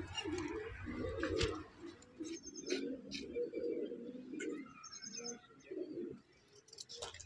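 Doves cooing in a run of low, wavering coos, with short high chirps from a small bird twice.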